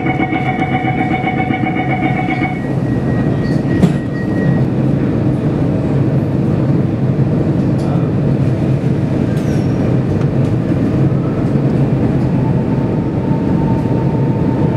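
Singapore MRT North East Line train standing in a tunnel with a steady low rumble and hum, then the whine of its traction motors rising in pitch as it pulls away near the end. A few high steady tones stop about two and a half seconds in, and a single sharp click sounds about four seconds in.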